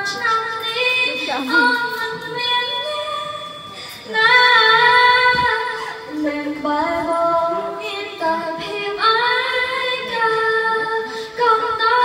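A girl singing through a handheld microphone, a slow melody of long held notes with short breaths between phrases.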